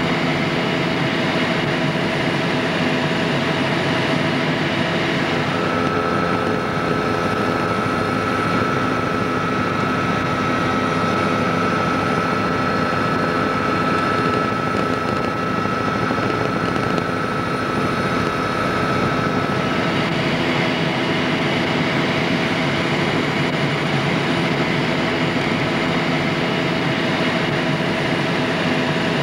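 Steady helicopter cabin noise: engine and rotor drone with a mix of steady tones under a rushing hiss. About five seconds in the hiss dulls and a thin, steady high whine comes up, lasting until about twenty seconds in, when the brighter hiss returns.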